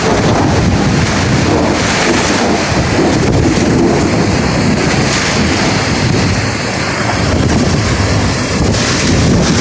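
Heavy rain and hail pouring down in a thunderstorm: a loud, steady rush, with wind buffeting the microphone.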